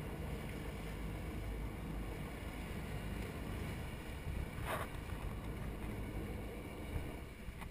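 Sportfishing boat's engines running with a steady low rumble, the propellers churning water at the stern as the boat backs down on a hooked fish, with wind on the microphone. A short rush of noise comes a little past the middle.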